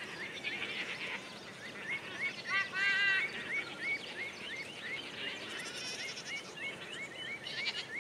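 A goat bleats once, a short wavering call about three seconds in. Under it runs a steady series of short rising chirps, about two a second.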